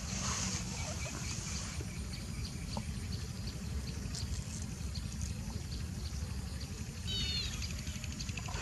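Outdoor field ambience: a steady low rumble with faint, evenly repeated insect ticking, and a short high chirping call of a few quick downward-sliding notes about seven seconds in.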